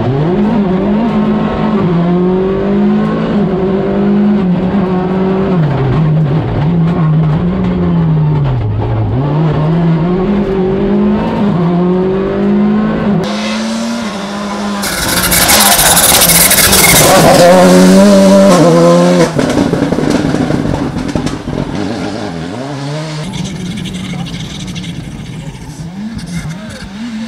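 VW Polo GTI R5 rally car's turbocharged four-cylinder engine revving hard, climbing and dropping again and again as it shifts through the gears, heard from inside the cockpit. About halfway the sound changes to the car heard from outside: a loud rush of tyre and gravel noise over a rising engine as it goes by close, then the engine picking up again more quietly near the end.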